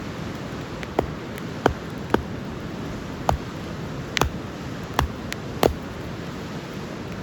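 Wood campfire crackling, with about seven sharp pops at irregular intervals over a steady rushing background.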